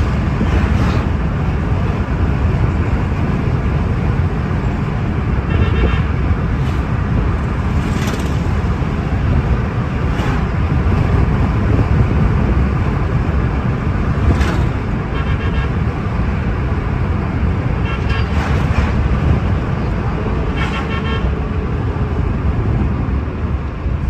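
Steady road and engine rumble inside a moving car, with several short vehicle horn honks from surrounding traffic.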